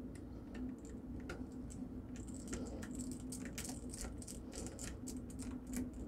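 Quiet, irregular small clicks, taps and light scraping of a screwdriver and fingers on the plastic and metal inside a laptop's open underside, while securing a freshly fitted M.2 SSD and tucking a wire clear.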